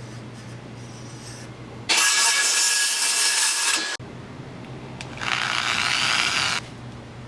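A power tool runs in two short bursts, one about two seconds long and one about a second and a half later, over a steady low hum.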